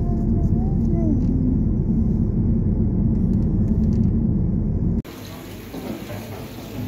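Steady low road and engine rumble inside a moving car's cabin. It cuts off suddenly about five seconds in, giving way to much quieter indoor room sound.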